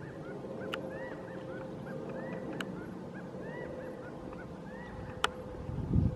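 Animal calls outdoors: short chirps that each rise and fall in pitch, several a second, with a faint steady hum under them. A few sharp clicks cut in, and a low thump comes just before the end.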